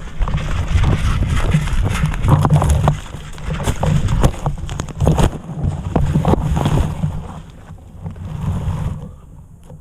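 Wind buffeting the camera microphone with a low rumble, mixed with irregular knocks and clatter of movement; it eases off near the end.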